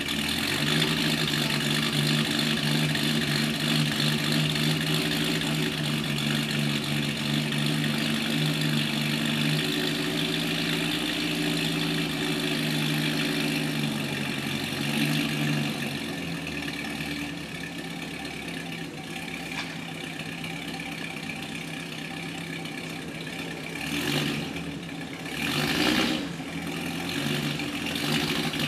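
Engine of a 1930s classic car idling steadily, its note settling lower about halfway through, with two brief louder swells of noise near the end.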